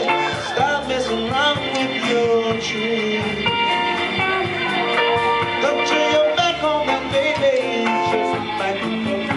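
Live band playing a slow blues-rock groove on keyboard, bass guitar and drums, with a lead line of bent, gliding notes.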